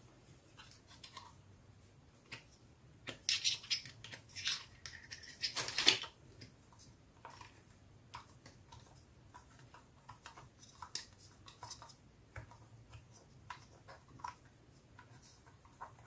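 Hands pressing and poking slime in a glass dish, making sticky crackling and popping clicks. A dense run of rapid crackles about three to six seconds in is the loudest part, followed by scattered small clicks.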